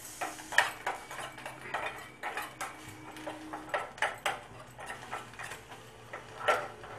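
Spoon clinking and scraping against a steel bowl in irregular taps, several a second, as a honey, ginger and tulsi paste is stirred while heating on low flame.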